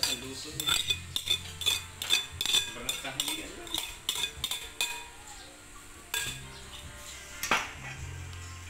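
A utensil scraping and tapping against a ceramic plate and a stainless steel bowl as grated food is pushed off the plate into the bowl: a quick run of clinks for the first few seconds, then fewer, with one louder knock about seven and a half seconds in.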